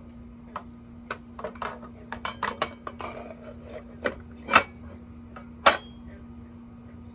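Metal parts of a miter saw clinking and clacking as the saw blade, flange and arbor bolt are handled and fitted onto the arbor: a string of irregular clicks, with two louder clanks about four and a half and five and a half seconds in.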